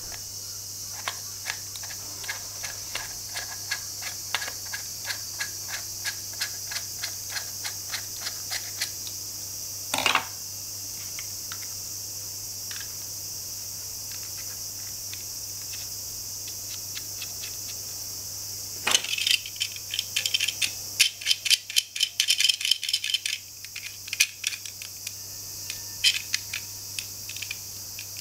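Plastic toy tools and a plastic bolt clicking as a toy screwdriver turns the bolt into a wooden block, about three clicks a second for the first nine seconds. Near the end, a denser, louder run of plastic clicking and clattering as a toy wrench works a plastic nut. A steady low hum and hiss lie under it.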